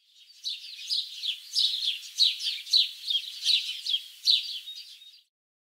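Birds chirping: a run of short, high, falling chirps, about two a second, that cuts off suddenly near the end.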